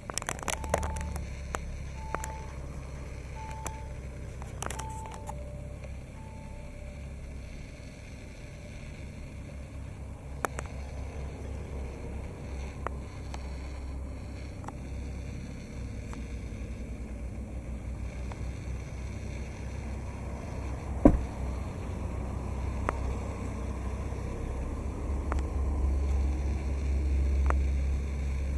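A car's cabin warning chime beeping about six times, roughly every second and a half, with two lower beeps at the end, over a steady low rumble. A single sharp knock about two-thirds of the way through.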